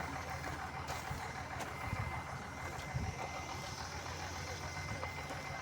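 Excavator's diesel engine running steadily, a low even drone.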